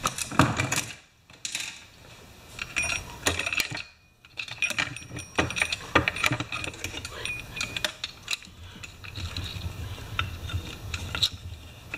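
Steel saw chain of a Pioneer Partner 500 chainsaw clinking and rattling in irregular clicks as it is handled and looped around the clutch drum sprocket.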